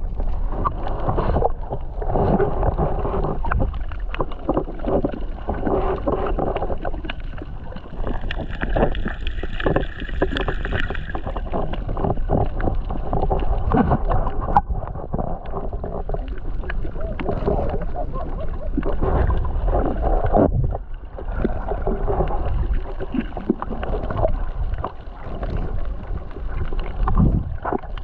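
Muffled underwater sound around a submerged action camera: water rushing and bubbling with many small crackles over a low drone.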